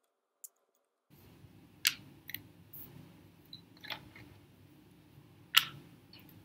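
Small plastic fidget toys being handled: a few sharp clicks and taps over faint room hum, the two loudest about two and five and a half seconds in, after a second of silence at the start.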